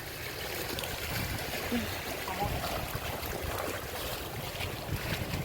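Steady wash of sea water along the shore, with low wind rumble on the microphone.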